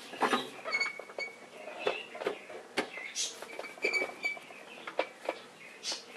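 Steel bars and a gloved hand working at a scooter's front fork as the spring-loaded fork cap is eased out: irregular metal clicks, scrapes and short squeaks.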